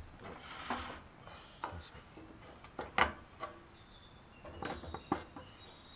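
Scattered knocks, clicks and light clatter of camp cooking gear being handled and set out on a low table. The sharpest knock comes about three seconds in.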